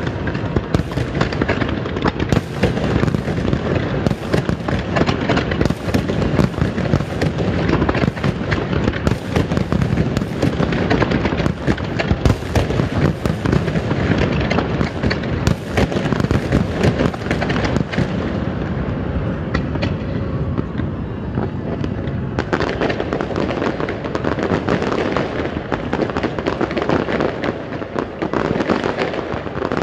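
Fireworks display: a dense, continuous barrage of shells bursting in rapid bangs and crackles, easing briefly about two-thirds of the way through before building again.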